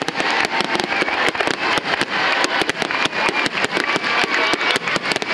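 Fireworks display at full intensity: dense, rapid crackling and bangs from many aerial shells bursting at once.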